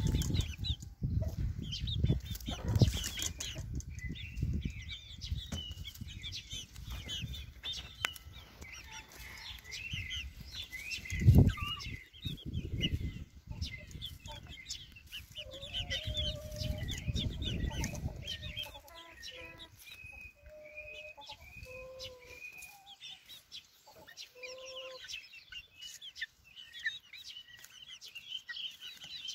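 Young chickens peeping and chirping in many short high calls, with a few lower, drawn-out calls in the second half. A low rumble runs under the first half, with a loud thump about 11 seconds in.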